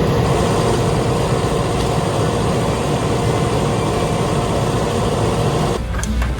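Heavy diesel construction machine engine running steadily, with a constant whine over the rumble. The sound changes abruptly near the end.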